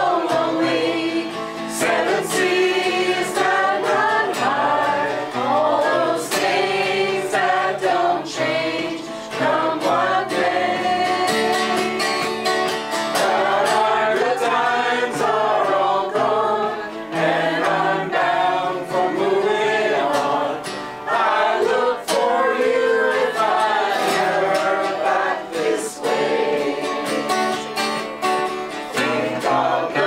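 Mixed choir of men and women singing a folk song in harmony, accompanied by an acoustic guitar.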